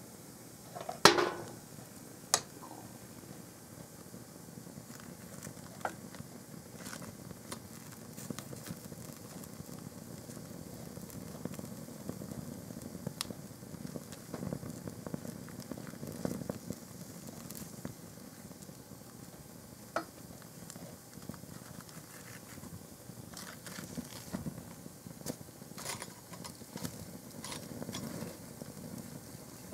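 A white canvas plimsoll burning on a fire grate: flames rushing softly with scattered crackles and pops. There is a sharp crack about a second in, the loudest sound, and a smaller one about a second after it.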